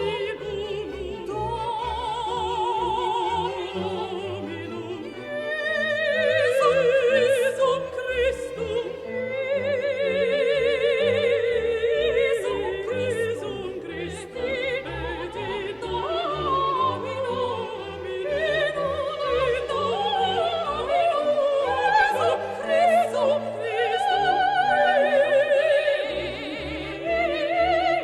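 Background music: an operatic solo voice singing with strong vibrato over orchestral accompaniment.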